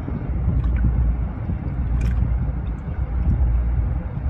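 Steady low rumble of a boat engine running on the water.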